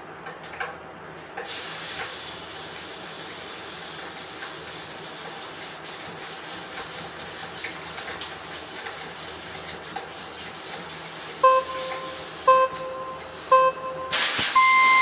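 A steady hiss, then near the end a countdown of short beeps, followed by a longer, louder start beep at a higher pitch.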